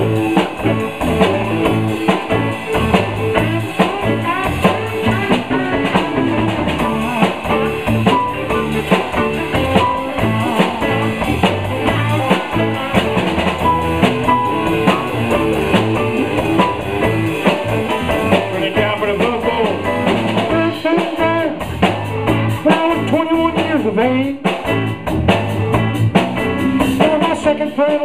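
Live blues band playing an instrumental passage with a drum kit keeping a steady beat under guitar and other instruments.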